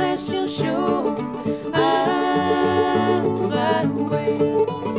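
Background music: a song played on plucked string instruments.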